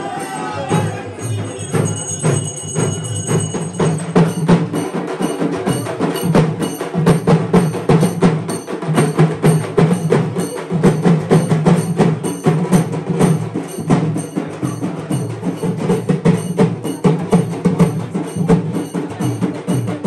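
Fast, steady percussion music: sharp strikes at about four a second over a steady low drone, with a high ringing tone for a couple of seconds near the start.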